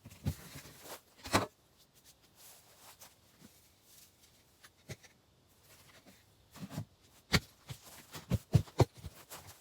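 Scattered short knocks and rustles of footsteps and handling, with several sharper knocks in quick succession near the end.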